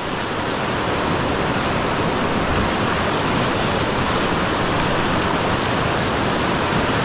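River rapids: white water rushing steadily over rocks, an even, unbroken roar of moving water.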